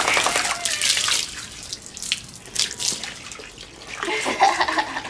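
Water pouring and splashing over a dog's head and ears as it is rinsed, heaviest in the first second and lighter after.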